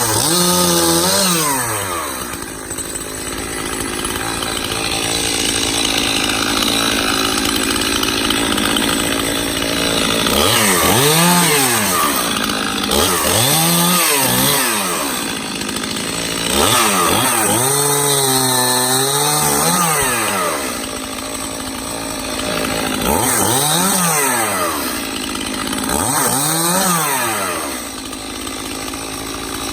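Stihl chainsaw cutting oak limbs and brush. The engine is throttled up and let back down about six times between cuts, its pitch rising and falling each time, and runs steadily at speed in between.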